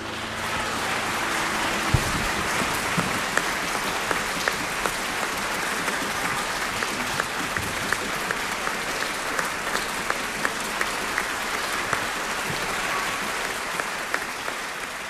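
Audience applauding steadily in a concert hall, a dense patter of claps with a few louder single claps standing out, and one sharp thump about two seconds in.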